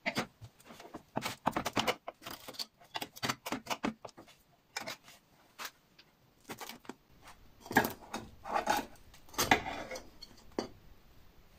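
Knife cutting through a baked pan pizza and scraping against the metal baking tray: a run of irregular scrapes and clicks, loudest near the end as a slice is pried loose.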